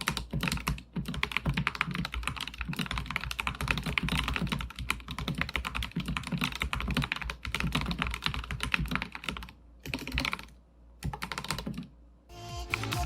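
Typing sound test on a modded SK61S keyboard with Krytox 205g2-lubed Gateron Optical Black linear switches, foam packed in the case and between plate and PCB: a fast, continuous run of keystrokes, then two short flurries with brief pauses. Music comes in just before the end.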